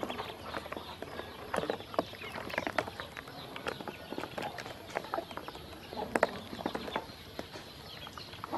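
Ducklings dabbling at a plastic poultry waterer: many quick, irregular clicks and taps of their bills in the water tray and against the plastic basin, with some peeping.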